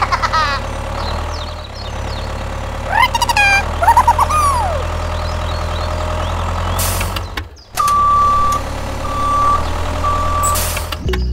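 Tractor engine running with a steady low drone, with a few short high sliding calls near the start and about three seconds in. After a brief cut-out about seven and a half seconds in come three steady, evenly spaced reversing beeps as the tractor backs toward the hole.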